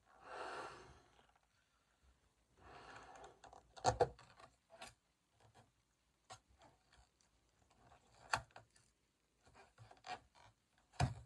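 Breath blown into a latex balloon, twice, in the first few seconds. Then the balloon's stretched latex neck is rubbed and pulled as it is tied off, giving short sharp rubs and snaps every second or two.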